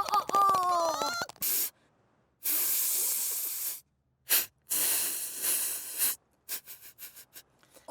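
A brief sung or spoken voice with clicks, then a cartoon hissing sound effect in bursts: two long hisses of over a second each, then several short spurts near the end, with silent gaps between them.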